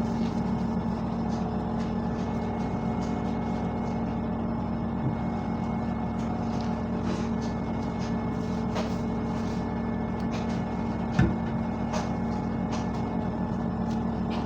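A household cleaning appliance's motor running with a steady hum, with scattered light clicks and one sharper knock about eleven seconds in.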